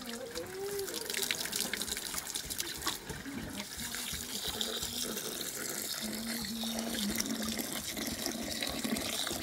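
Water running and splashing steadily, as from a tap or pour into a basin.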